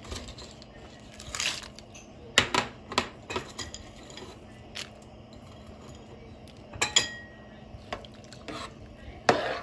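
A spoon stirring frozen peas and diced carrots into a pot of rice water, knocking and clinking against the pot's sides in scattered strokes, with the sharpest knocks about two and a half seconds in, at three seconds, at seven seconds and just before the end.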